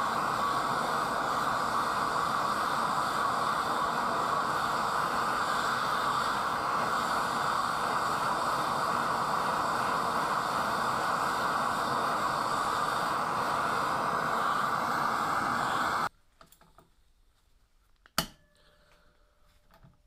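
Gas blowtorch flame burning with a steady hiss while it heats a bolt in a metal engine bracket. The hiss cuts off abruptly about 16 seconds in, and one sharp click follows about two seconds later.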